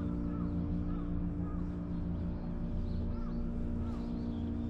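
Steady low mechanical hum with a deep rumble, like an engine or machine running on without change. Short high arched calls repeat over it, roughly one every half second to a second.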